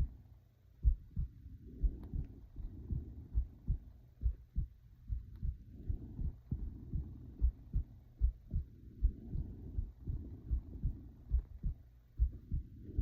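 A person's heartbeat, a steady lub-dub a little over once a second, each beat a close pair of low thumps. Slow breathing rises and falls under it every three to four seconds.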